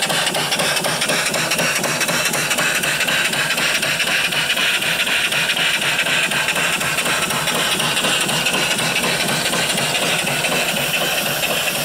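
Homemade 3-inch bore, 4-inch stroke mill (box bed) steam engine with a flyball governor running steadily on steam, a fast even rhythm of exhaust beats over a steady hiss of steam.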